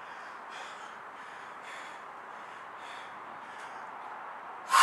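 A man breathing hard after heavy sledgehammer work: short, faint, airy breaths come one after another, then a loud, sharp exhale near the end.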